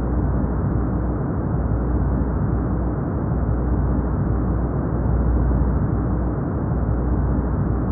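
Steady, smooth brown noise: a deep, even rumbling hiss with most of its energy in the lows and no high frequencies.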